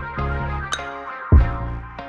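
Background music: sustained chords over a deep bass hit about every second and a quarter, with a sharp click-like beat falling between the hits.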